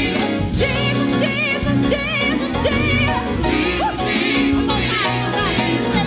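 Gospel choir singing with live band accompaniment, the music continuous and steady in level.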